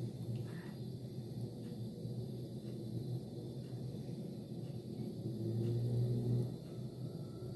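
A low steady background hum, swelling briefly about five and a half seconds in, with faint soft ticks scattered through it.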